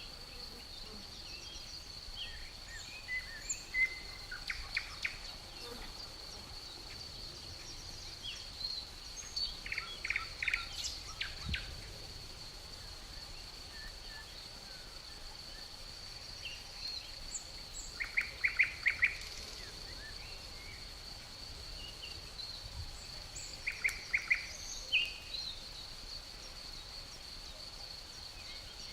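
Crickets keep up one steady, high-pitched trill throughout. Birds break in with four short bursts of quick chirps spread through it.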